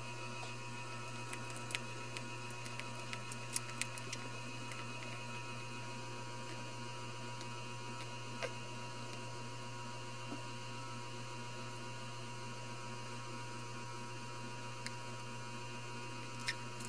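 Steady low electrical hum with a few faint steady high tones above it, broken by scattered faint clicks and ticks.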